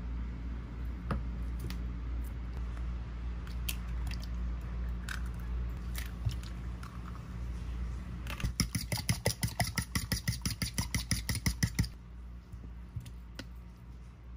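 A few scattered clicks, then a fast, even run of sharp knocks or taps, about seven a second for some three and a half seconds, over a steady low hum.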